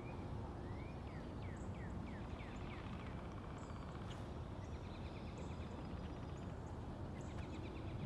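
Wild birds singing over a steady low rumble of wind. A run of about seven quick down-slurred notes comes in the first three seconds, followed by thin high chirps and a short rapid trill.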